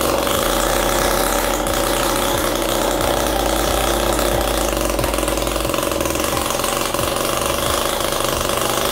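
Small pull-start two-stroke engine running steadily while it drives a homemade electrical generator.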